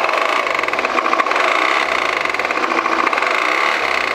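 2018 Volvo XC90 diesel engine running with a fast, even metallic rattle. The mechanic has ruled out the crankshaft damper pulley and thinks it sounds like a worn engine metal bearing, though he is not sure.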